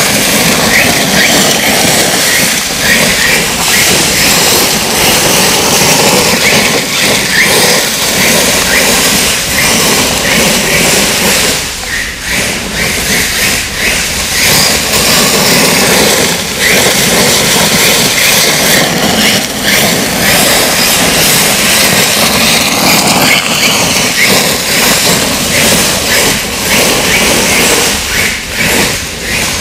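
Xray 808e 1/8-scale electric buggy's brushless motor on a 5S LiPo, whining and rising and falling in pitch as the throttle is worked. Drivetrain noise and tyres scrabbling on loose dirt run under it.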